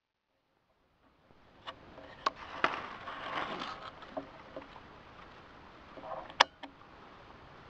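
Dry corn leaves rustling and crackling close by, with a scatter of sharp clicks and one loud sharp snap about six seconds in.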